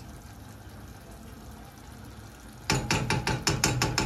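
Metal spoon clattering against the inside of a speckled nonstick pan while stirring, a fast, even run of clicks about six a second that starts a little under three seconds in.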